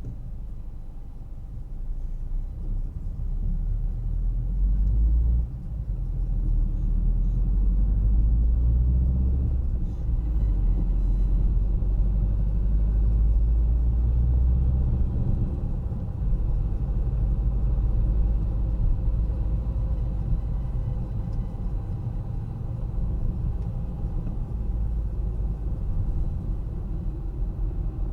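A car driving on city streets: a steady deep rumble of engine and tyres on the road. It grows louder a few seconds in and eases slightly after about sixteen seconds.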